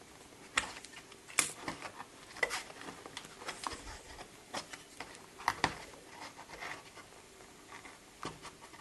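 Plastic parts of a 1:500 model airport terminal being handled and pressed together by hand: irregular light clicks and taps with some rubbing in between.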